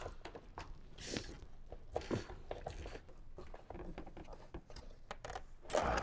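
Handling noise of an amplifier power wire being routed and tucked under engine-bay parts: irregular small clicks, crinkles and rustles, with a louder rustle near the end.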